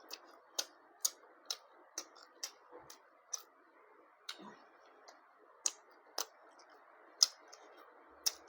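Close-miked eating: a run of short, sharp wet mouth clicks and smacks as food is chewed, a bit under two a second at an uneven pace, with a brief pause midway.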